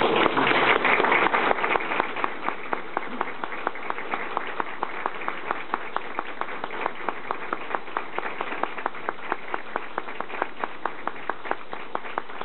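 Audience applauding: a full burst of clapping that thins after a few seconds into steady, evenly spaced rhythmic clapping.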